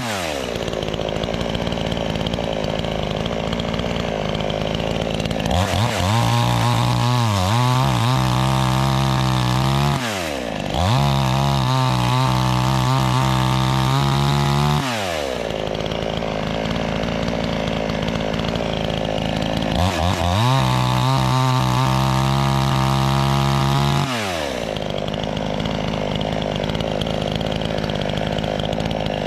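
New chainsaw's small engine switching between idle and high revs. It falls to idle at the start, revs up about five seconds in, and holds high for several seconds at a time, with one brief dip. It does this three times, dropping back to idle between bursts, and starts revving again at the very end.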